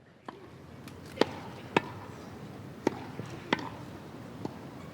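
Tennis ball struck by rackets and bouncing on the court in a rally: about five sharp pops at uneven spacing over a steady low crowd ambience.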